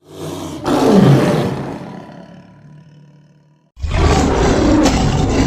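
Movie-monster roar sound effect for an Allosaurus. A first roar swells, drops in pitch and fades out over about three seconds. A second loud roar starts abruptly near the end.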